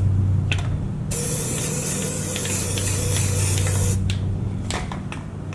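Rust-Oleum undercoating spray can spraying: one long hiss of about three seconds starting a second in, with a few light ticks around it, over a steady low hum.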